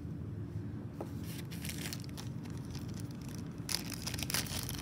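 Packaging rustling and crinkling as small jewellery pieces are unwrapped and handled, in scattered crackles that grow busier near the end, over a steady low background hum.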